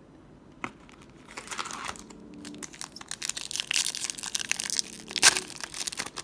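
Foil wrapper of a 2019-20 Upper Deck Series One hockey card pack crinkling and tearing as it is opened, starting about a second in, with a sharp crackle near the end.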